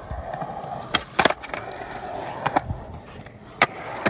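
Skateboard wheels rolling steadily over smooth concrete, with a few sharp clacks: one cluster about a second in, two close together halfway through and one more near the end.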